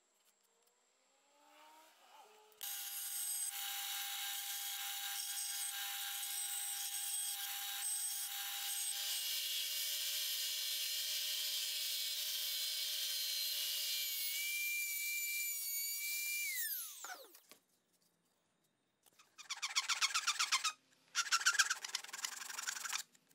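Bench belt sander starting up and running for about fourteen seconds with a plywood piece pressed against the belt, then winding down with a falling whine. Near the end comes a run of quick hand-file strokes rasping along a plywood edge.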